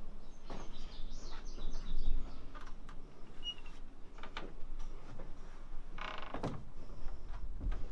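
Footsteps on wooden floorboards, with the wood creaking and a pitched creak about six seconds in.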